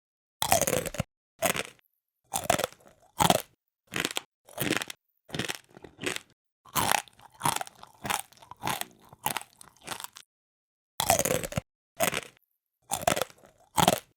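Close-miked chewing of a hard, crisp food: a steady series of sharp crunches, roughly one every half second to second, with a short pause about ten seconds in.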